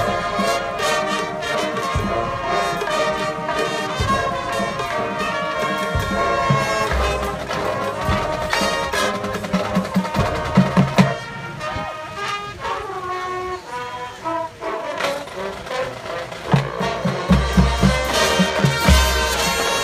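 Drum and bugle corps playing live: the brass line sustaining chords over drums and mallet percussion. The band drops to a softer passage about two-thirds of the way through, then heavy low drum hits come back in near the end.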